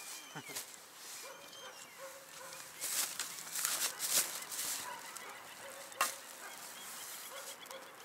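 Rustling of a woven sack as a hand rummages in it, loudest about three to four seconds in, with a sharp click about six seconds in. Faint short animal calls sound in the background.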